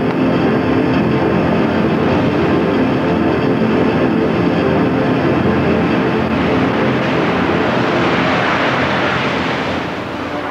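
A car's engine and road noise as it drives off, steady, swelling about eight seconds in and fading near the end.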